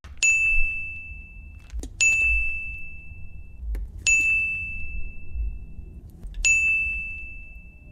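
A bright bell-like ding struck four times, about two seconds apart, each ringing on for over a second, over a low rumble.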